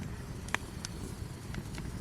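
Wood campfire crackling: a few sharp pops, one about half a second in and a couple more near the end, over a low steady rumble.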